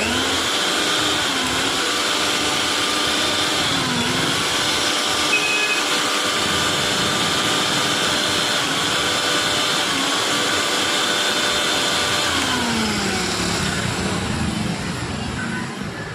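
Electric mixer grinder motor running with a steady whine and hiss. Its pitch dips briefly a few times, then falls about thirteen seconds in as the motor slows and the sound fades.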